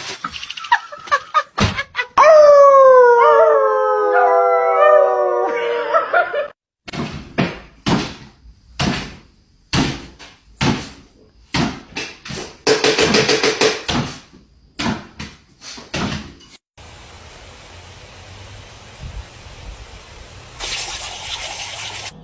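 A dog howling: one long call about four seconds long, falling slowly in pitch. It is followed by a run of sharp knocks and thuds and then a steady hiss.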